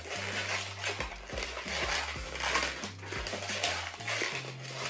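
Red 160 latex twisting balloons squeaking and rubbing in the hands as a small balloon bow is tied and shaped, with soft background music underneath.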